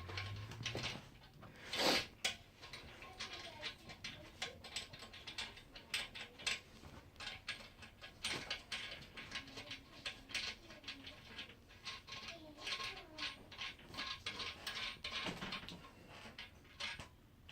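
Faint, irregular small clicks, taps and scrapes of hardware being handled: washers and nuts being threaded by hand onto toilet tank bolts.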